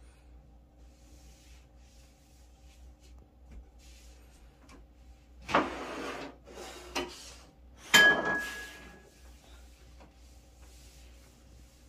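Bedding rustling and rubbing in three bursts, about five and a half, seven and eight seconds in, the last the loudest with a brief squeak in it. A faint steady hum runs underneath.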